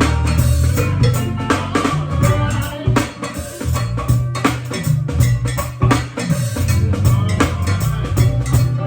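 Band music with a strong bass line, a busy drum kit and some guitar.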